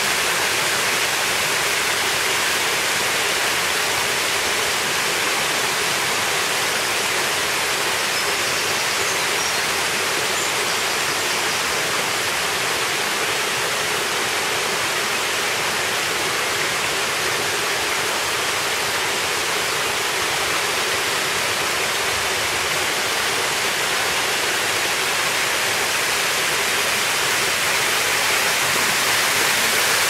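Small waterfall, with thin streams of water splashing down a moss-covered rock face: a steady rushing hiss that grows a little louder near the end.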